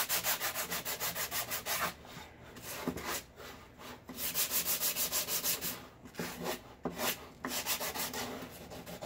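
80-grit sandpaper on a hand sanding block rubbed in quick back-and-forth strokes along the edges of a wooden block, about five strokes a second. The strokes come in bursts, with a softer stretch in the middle.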